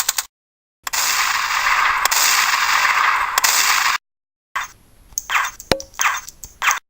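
A string of separate sound effects with dead-silent gaps between them: the end of a fast rattle, then a steady hiss lasting about three seconds, then a few short swishes with one sharp clang among them.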